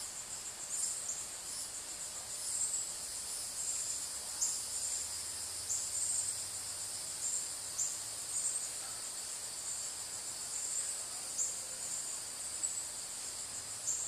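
A steady, high-pitched insect chorus swelling about once a second, with a few short falling chirps scattered through it.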